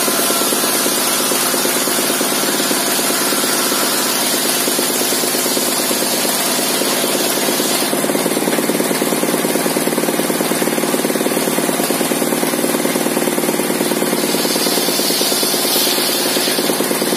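Engine-driven circular saw bench, its blade modified for ripping fibrous timber, running continuously while a long plank is fed through it lengthwise. The steady engine-and-blade noise shifts in tone about halfway through, with a higher whine coming in near the end.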